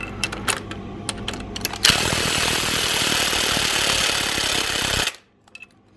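Cordless impact wrench hammering on an engine mount bolt for about three seconds, after a few light clicks, then cutting out suddenly as its battery goes flat.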